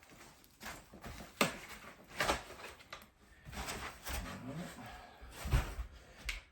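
E-bike parts and packaging being handled: a string of separate knocks, clicks and rustles as pieces are taken out of the shipping box and set down.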